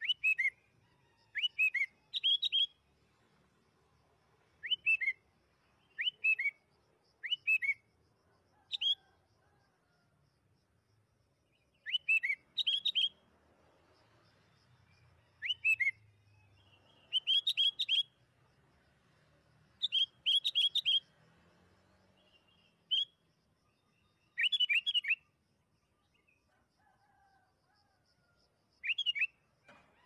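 Sooty-headed bulbul singing short phrases of two to four quick notes, each dropping in pitch, repeated every second or two with short pauses between.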